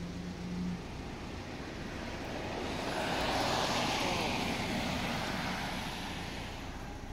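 A vehicle passing by on the road, its noise swelling to a peak about three and a half seconds in and then fading away. A brief low hum sounds in the first second.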